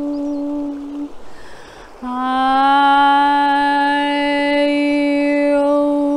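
A woman's voice toning one long sustained note, hummed and chant-like. About a second in it breaks for an audible breath, then the same pitch returns with bright ringing overtones swelling in.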